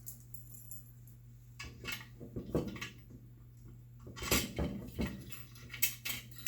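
Metal clicks and clanks of a lockable door-mullion latch being worked by hand, in several bunches from about a second and a half in: the key cylinder turns and a slider bar lifts the latch claws.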